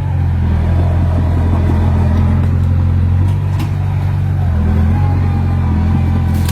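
Heavy diesel engine of earthmoving machinery running steadily under load, its pitch shifting slightly a couple of times, with a few faint clanks.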